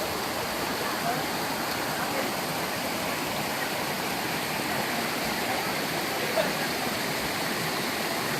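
Waterfall: falling water rushing and splashing in a steady, unbroken roar.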